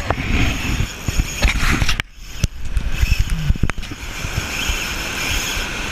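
Wind buffeting the microphone over surf washing on the rocks below, with a brief drop about two seconds in and a few sharp knocks of gear handling.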